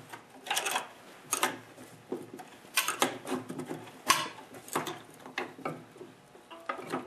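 Steel box-end wrench clinking against a 9/16 lock nut and the transmission side plate of an MTD snowblower as the nut is tightened in short strokes, the wrench lifted and reset on the nut between turns, while the shaft is held with an adjustable wrench. About a dozen short metallic clinks come at uneven spacing.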